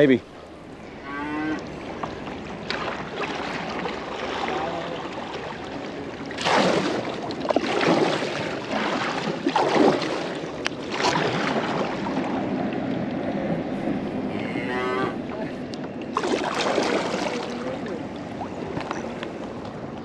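Cattle mooing, one call about a second in and another near the end, with kayak paddle strokes splashing in the water several times in between.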